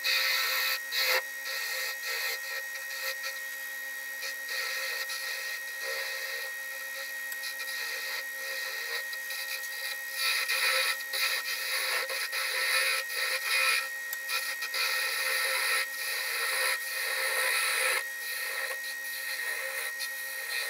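Small wood lathe turning a thin spindle while a hand-held turning tool, reground from a worn 3/8 in gouge, cuts it: a rough scraping hiss of wood being shaved that swells and eases as the tool is worked, over one thin steady tone.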